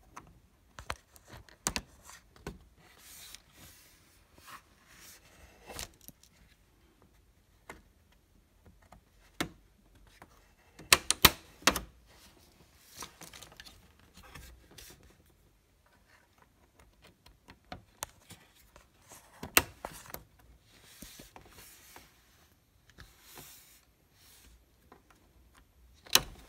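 Plastic frame clips on an LCD TV panel being pried loose with a plastic pry tool: scattered clicks and scraping, with a cluster of sharp snaps about eleven seconds in and another near twenty seconds.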